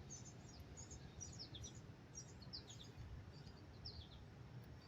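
Faint small-bird chirps: short, high notes sliding downward, repeated every half second or so over a quiet low background hum.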